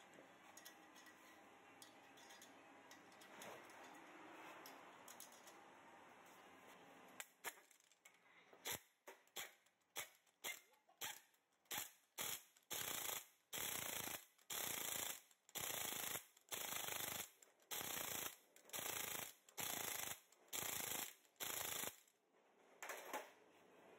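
Impact wrench with a 100 ft-lb torque stick running the wheel's lug nuts down tight, in a long series of short bursts with pauses between them. The bursts start about eight seconds in, after a stretch of faint handling sounds, and get somewhat longer toward the end. The torque stick limits each lug nut to about 100 ft-lb.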